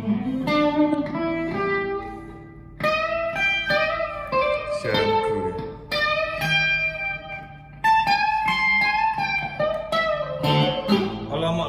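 Amplified electric guitar played solo: melodic lead phrases of single notes with string bends, in several short runs separated by brief pauses.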